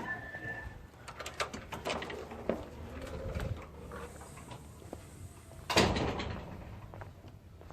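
A person sneezing once, loud and sudden, about six seconds in, amid scattered small knocks and clicks.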